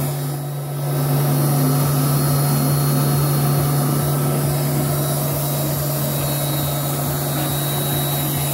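Electric blowers running with a steady drone and a strong low hum over an even rushing hiss, as the charcoal gasifier and steam superheater run at full heat.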